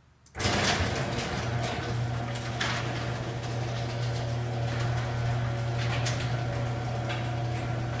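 Electric garage door opener starting abruptly and running with a steady low hum while the sectional garage door rolls down its tracks, rattling and clicking as it closes.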